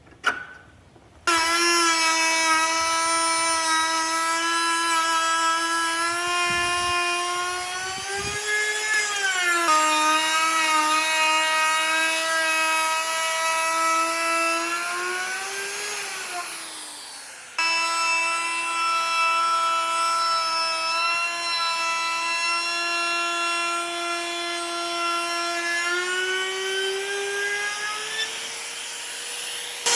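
High-speed electric power tool motor running with a steady whine that starts suddenly about a second in. Its pitch sags and recovers several times as the load changes. Just after the middle it winds down and stops, then is switched on again a moment later.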